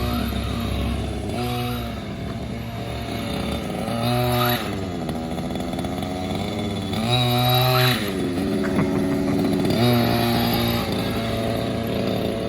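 RC car's small engine running, with about four louder bursts of revving a few seconds apart, each falling back to a lower, steady run.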